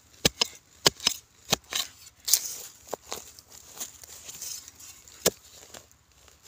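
A digging tool chopping into dry, sandy soil around a buried wild yam tuber: a quick, irregular run of sharp strikes, then fewer, with one loud strike near the end.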